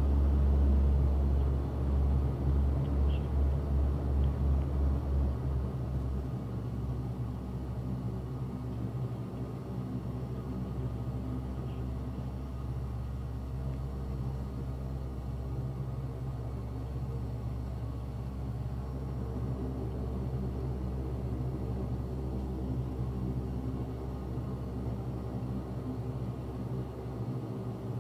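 The four Allison T56 turboprop engines and propellers of a C-130H Hercules running while it taxis, heard from inside the cockpit as a steady low drone. For the first six seconds or so the drone beats in a loud pulse, then it settles into a steadier, slightly quieter drone.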